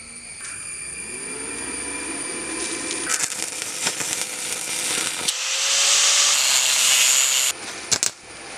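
Stick welding with an inverter arc welder: the electrode's arc crackles and hisses, building louder, and stops abruptly near the end.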